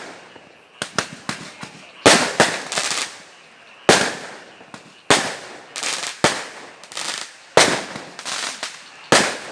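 Fireworks going off: a string of sharp, loud bangs in irregular clusters, each trailing off in echo.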